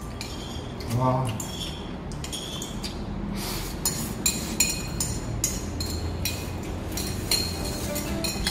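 Instant ramyeon noodles being slurped in quick repeated bursts, with cutlery clinking against plates. A short vocal sound about a second in.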